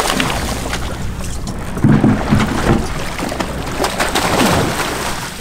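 Boat engine running steadily, with wind and water noise and scattered knocks; a few louder low thuds come about two seconds in.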